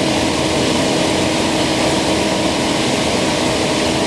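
Thickness planer running with its Tersa-knife cutterhead spinning, a steady, unchanging machine drone with a constant hum.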